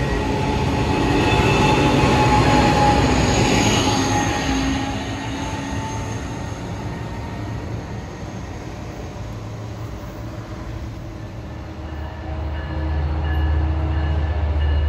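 Amtrak Pacific Surfliner bilevel passenger cars rolling past close by, with steel-wheel rumble and thin high squealing tones, fading after about five seconds. Near the end, the low steady drone of an approaching Metrolink train's diesel locomotive rises.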